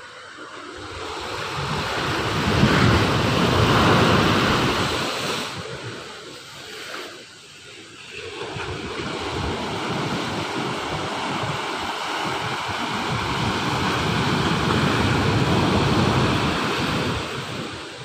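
Ocean surf breaking and washing up onto a sandy beach among rocks: one wave surges to a peak about three to four seconds in and fades, then a second, longer surge builds from about eight seconds and fades near the end.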